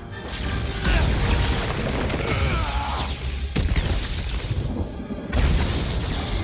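Movie fight sound effects: heavy booms and crashing hits with the crackle of electricity from a lightning-charged hammer, over a film music score. There is a sharp hit a little past halfway, and a big boom just after a brief dip about five seconds in.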